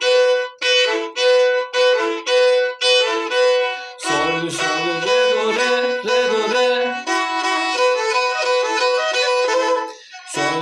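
Black Sea kemençe, a small three-string bowed fiddle, playing a folk-tune phrase: separate short bowed notes at first, about two a second, then from about four seconds in a faster unbroken run with lower notes sounding beneath. It breaks off briefly just before the end.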